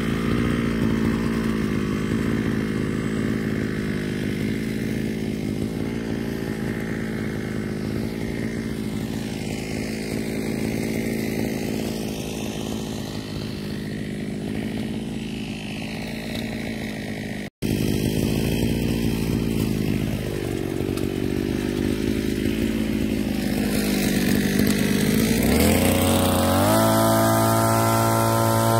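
Backpack brush cutter's small engine running steadily at low speed, then revving up sharply and holding at a higher speed near the end.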